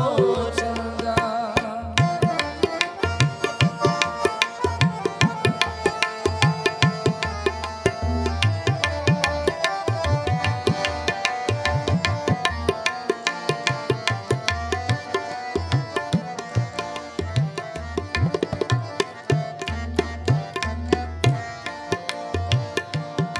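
Instrumental interlude of devotional kirtan music: tabla playing a steady, fast rhythm with deep bass strokes, under held melodic notes. The last sung word fades out about a second in.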